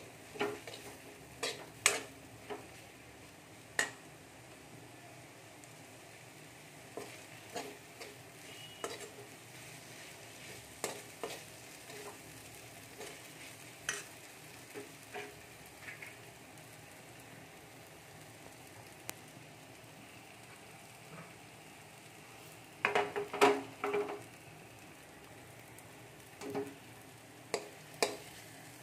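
A spatula scraping and tapping against a metal pan as Maggi noodles with chopped vegetables are stir-fried, over a low steady sizzle. The scrapes come in scattered strokes, with a quick run of them near the end.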